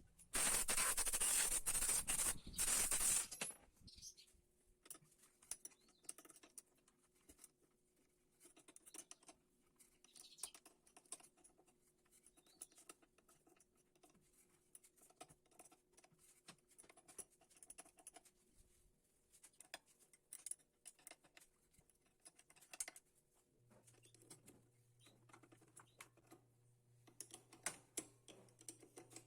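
A loud hiss lasting about three seconds at the start. Then scattered light clicks and scrapes of metal parts and tools being handled while the thickness planer is being worked on.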